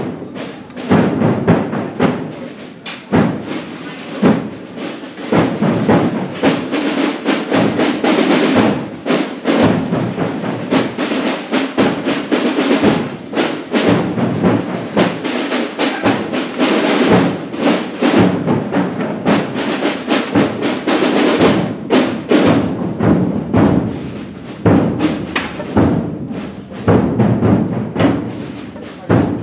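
Procession drums beating, with many sharp, irregular strikes.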